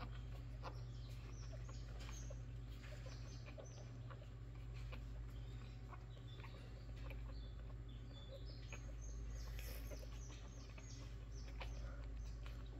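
Newborn Jack Russell terrier puppies squeaking and whimpering faintly as they nurse: many short, high chirp-like squeaks scattered throughout, over a steady low hum.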